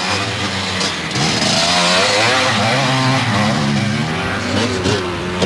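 Enduro dirt bikes riding past, their engines revving and easing with wavering pitch as they come along the track.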